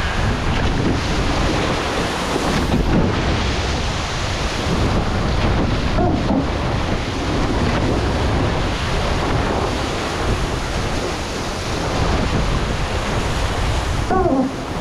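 Wind buffeting the microphone over a steady rush of water along the hulls of an Extreme 40 racing catamaran under sail.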